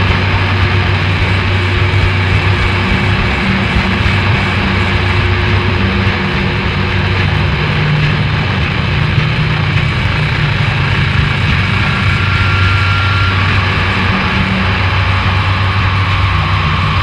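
Harsh noise or drone music: a loud, dense wall of noise over a steady low hum, with a thin high tone coming in near the end.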